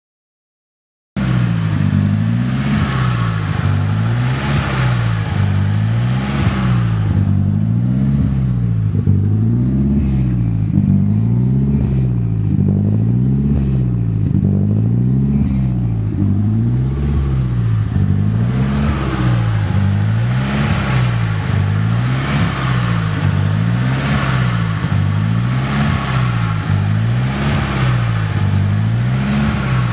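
Nissan SR20DET turbocharged 2.0-litre inline-four running at a rough idle, its speed rising and falling about once a second. It cuts in about a second in. The owner later traced the rough idle to the ignition timing.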